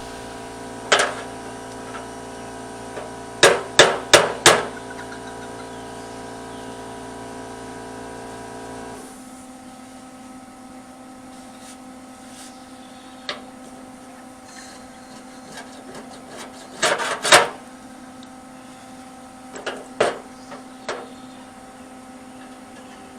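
Hammer blows in scattered groups: a single strike, a quick run of four, then more clusters near the end. A steady hum runs underneath and cuts off about nine seconds in.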